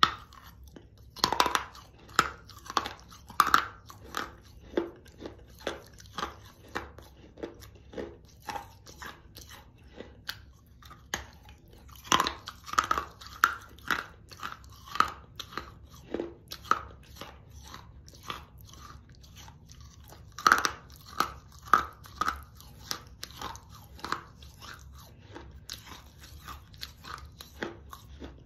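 A person chewing a piece of crunchy, gritty baked Mexican clay pot close to the microphone: a bite, then a steady run of crunching chews about one and a half a second, with louder clusters of crunching three times.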